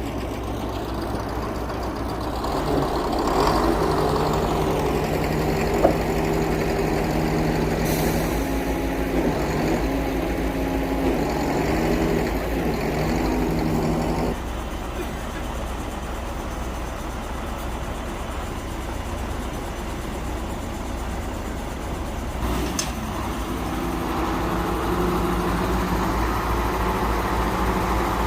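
Crane truck's engine running, twice brought up to a higher steady speed with a hum and whine from the hydraulics for a spell, then dropping back to idle in between. A couple of short clicks or knocks are heard.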